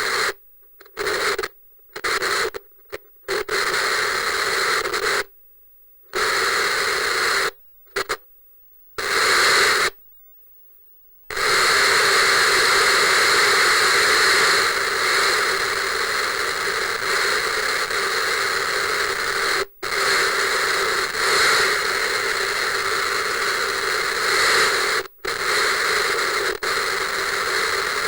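Analog television static: loud hissing noise with a buzzy edge, first switched on and off in about eight short bursts with sudden gaps, then running steadily from about eleven seconds in, with a couple of brief cut-outs.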